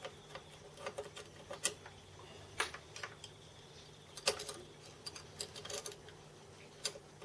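Irregular small clicks and knocks of hand tools and parts being handled at a workbench, with a sharper knock about four seconds in and another near the end.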